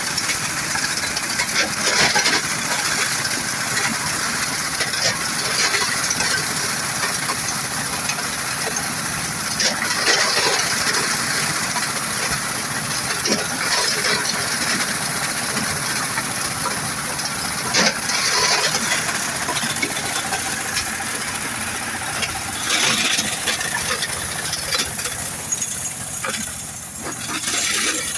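Stone-crushing machine running while it grinds river stones into sand, with many small stones clattering and rattling inside it all the while.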